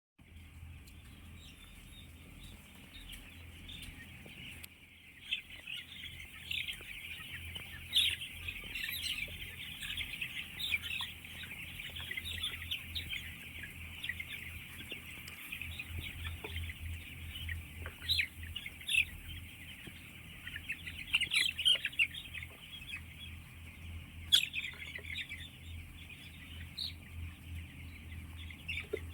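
A poultry house full of chicks peeping all together in a dense, continuous high-pitched chorus, with louder individual calls now and then. A steady low hum runs underneath.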